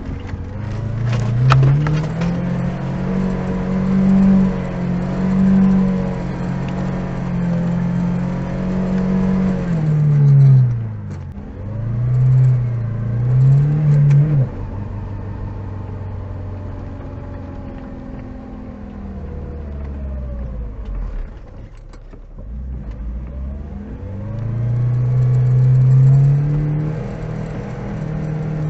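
Lada Niva's four-cylinder petrol engine working hard in first gear through mud: it revs up and holds high, drops about ten seconds in, surges briefly again, runs quieter for a while, then revs up again near the end.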